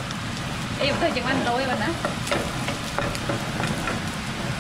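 Food sizzling in a hot pan as it is stirred, with a few sharp clinks of the utensil against the pan.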